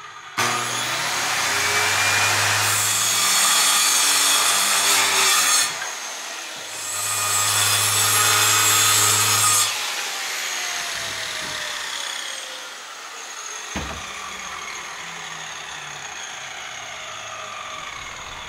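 Corded circular saw cutting through plywood in two passes, the first about five seconds long and the second about three. After the second pass the saw runs on more quietly with a slowly falling whine, and there is one sharp knock near the end.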